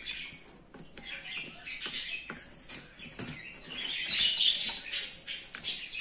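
Budgerigars chirping and chattering, with a fork clicking and scraping against a plastic tub as a peeled egg is chopped up in it.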